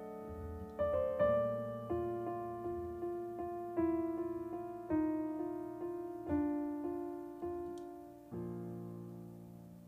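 Solo jazz piano on a Yamaha digital stage piano: a slow run of struck chords, then a last chord about eight seconds in, left to ring and fade.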